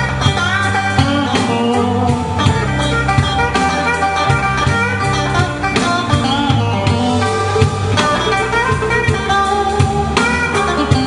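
Live electric blues band playing: electric guitars over a bass guitar line and a drum kit.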